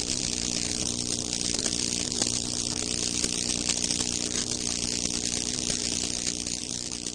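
Electric chair switched on: a harsh electrical crackling hiss over a steady low hum, fading a little near the end.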